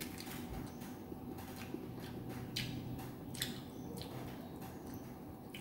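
A few faint, sharp clicks spread over several seconds from handling and eating snake fruit (salak), over a low steady hum.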